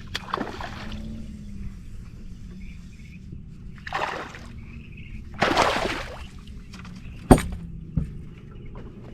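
Water splashing and sloshing against a boat in a few short bursts, the longest about five and a half seconds in, over a steady low hum; a sharp knock comes about seven seconds in, with a lighter one just after.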